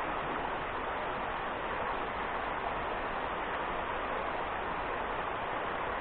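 River water rushing steadily over rocks in shallow rapids.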